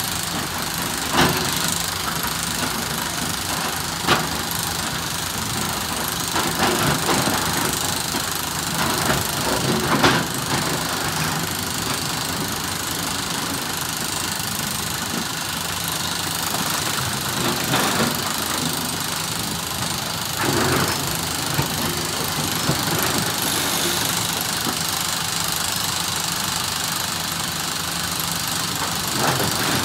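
SANY SY365H PRO excavator's diesel engine running steadily, with a few sharp knocks about 1, 4, 10, 18 and 21 seconds in.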